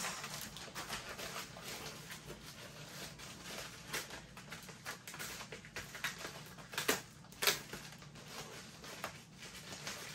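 Clear plastic and bubble-wrap packaging crinkling and rustling as it is handled and pulled open, with a few louder crackles about four and seven seconds in.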